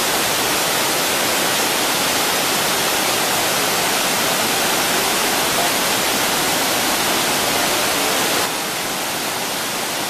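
Waterfall pouring over stepped dark rock into a plunge pool: a steady, loud rush of falling water. It drops a little in level about eight and a half seconds in.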